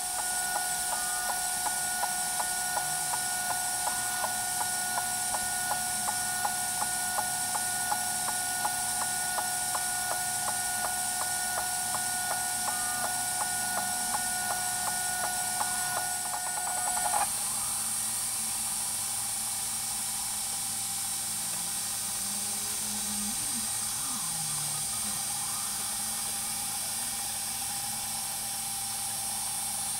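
Ortur Laser Master 3 laser engraver running an engraving job: the stepper motors of the gantry and the laser module's fan give a steady whine with a regular ticking as the head moves back and forth. About seventeen seconds in the sound changes abruptly to a smoother, steadier whine without the ticking.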